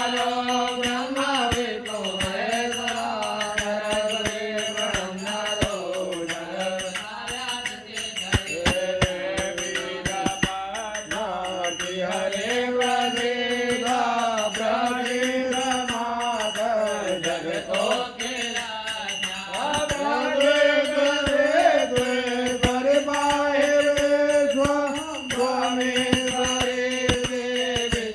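Sanskrit mantras chanted in long, melodic sung phrases by one voice, over musical accompaniment with frequent light percussive clicks.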